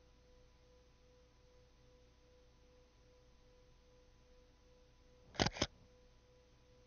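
A faint steady hum, then a camera shutter's quick double click about five seconds in.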